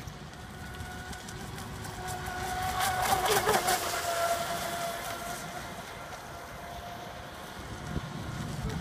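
Radio-controlled speedboat's motor giving a steady high whine as it skims across the water. It grows loudest, with a hiss of spray, as the boat passes close about three seconds in, then fades as it runs away.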